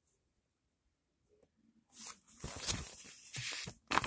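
Near silence for about two seconds, then a picture book being handled and its paper pages rustling, with a sharp knock near the end.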